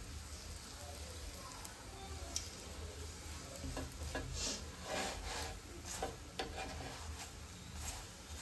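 A wooden spatula pressing and rubbing a chapathi on a hot tawa, with a faint sizzle of the flatbread cooking. From about three and a half seconds in, the spatula makes a string of short scrapes and pats against the griddle.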